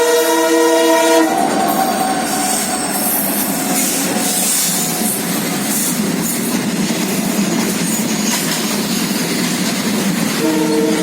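Train horn sounding a steady multi-tone chord that stops about a second in, then the continuous clatter of train wheels running over the rails. The horn sounds again near the end.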